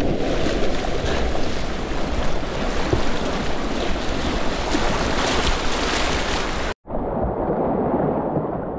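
Whitewater rapids rushing and splashing close to the microphone, loud and steady. Near the end the sound drops out for an instant and comes back duller.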